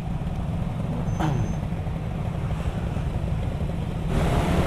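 Yamaha R15 V3's 155 cc single-cylinder engine running under way, with heavy low wind rumble on the helmet microphone. About four seconds in the sound grows louder and brighter as the bike picks up speed.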